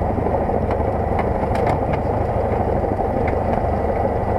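Cessna 172's piston engine and propeller running at low power, a steady rumble, as the plane rolls out on the runway after landing; a few faint clicks sound over it.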